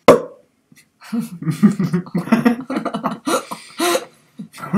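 A sudden loud vocal burst, then people laughing in rapid, choppy bursts for about three seconds.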